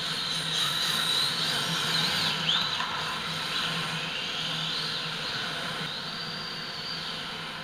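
Electric motors of 1/10-scale RC drift cars whining, the pitch rising and falling again and again with the throttle, over a steady hiss.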